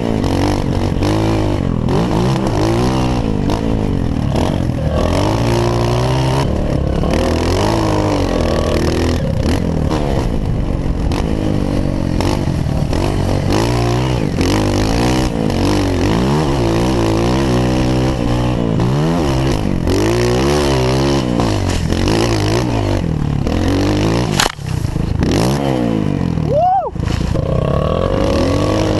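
Honda CRF 230F's single-cylinder four-stroke engine under way on a dirt trail, revs rising and falling over and over with throttle and gear changes. Near the end the revs dip sharply twice.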